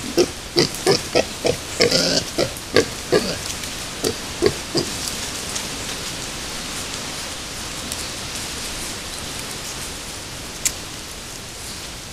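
Wild boar piglets grunting in short, rapid grunts, about three a second, while rooting in mud. The grunts stop about five seconds in, leaving a steady hiss and one sharp click near the end.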